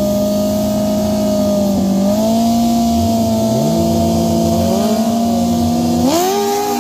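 Two drag-racing sportbike engines held at a steady high rev on the starting line, the pitch stepping up slightly about two seconds in. Near the end the revs climb sharply as the bikes launch.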